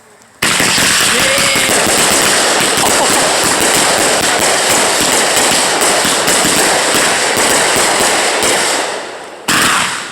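A firework going off with dense, rapid crackling pops that start suddenly about half a second in and run for about eight seconds before dying away. A second sharp burst starts near the end.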